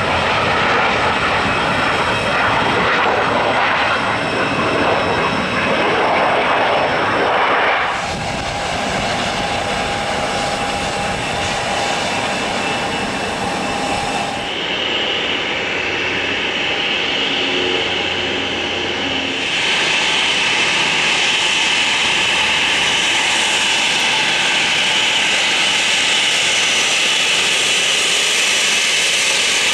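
Business jet engines. A Dassault Falcon 8X trijet's engines give a loud rushing noise through its landing roll for about the first eight seconds, then steadier engine whine as it taxis. In the last ten seconds a Dassault Falcon 2000LX twinjet taxis at idle with a steady high-pitched whine.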